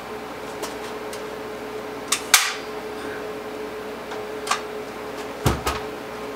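Hand tools being handled on a workbench: a series of sharp knocks and clatters, the loudest about two and a half seconds in and a heavier thump near the end, over a steady hum.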